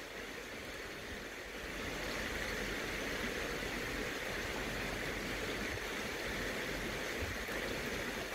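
Shallow river flowing over stones: a steady rushing of water that grows a little louder about two seconds in.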